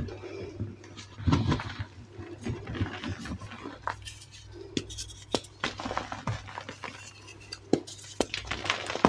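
Hands pressing, squeezing and crumbling reformed gray gym chalk powder: soft crunching with scattered sharp crisp crackles, over a low steady hum.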